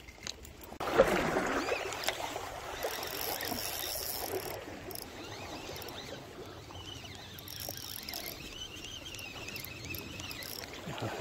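Spinning reel's drag buzzing as a hooked hairtail pulls line off, starting suddenly about a second in and running on unevenly. The drag has been set loose so the fish doesn't tear free.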